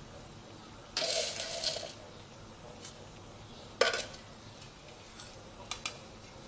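Fried shallots being tipped from a glass jar into a bowl of soup: a short rustling scrape about a second in, then a single sharp glassy clink just before four seconds, followed by a few faint ticks.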